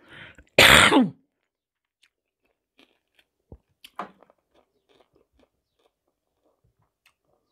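A woman coughs once into her hand, a short loud dry cough about half a second in; she later puts her sudden dry coughing down to her thyroid. Then only faint chewing and lip smacks as she eats.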